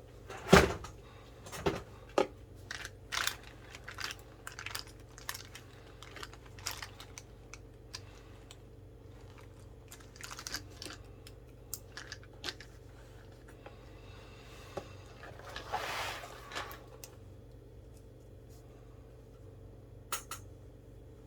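Desk handling noises: scattered sharp clicks and knocks, the loudest about half a second in, with a rustle like paper being moved about 16 seconds in, over a steady low electrical hum.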